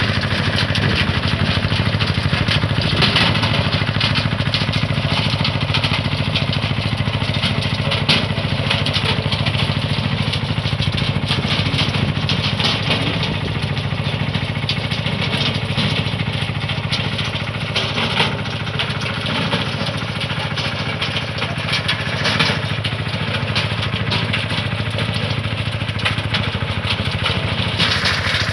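Tomo Vinković 523 tractor's engine running steadily under load as it drives a rear rotary tiller through the soil, with a few brief knocks along the way.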